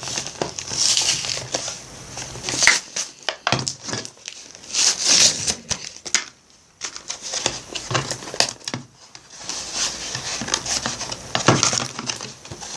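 Toy packaging being handled and torn open: irregular crinkling and ripping with sharp crackles, pausing briefly a little past halfway.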